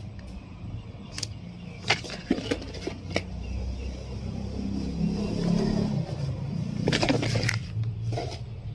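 Paper leaflets and a kraft-paper pouch rustling and crinkling as they are handled, with several sharp crackles. Under it a motor vehicle engine runs, growing louder from about three seconds in and dropping away at the end.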